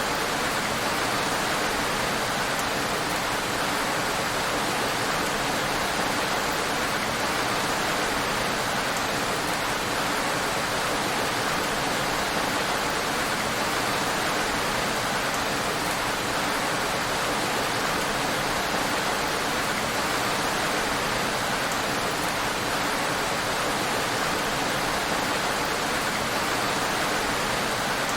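Heavy rain falling steadily on a road: an even, unbroken hiss with no separate drops or changes.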